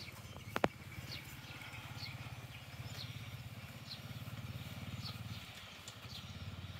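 Small motorbike engine running steadily, a low even drone. A bird gives a short high call about once a second, and there is a sharp click about half a second in.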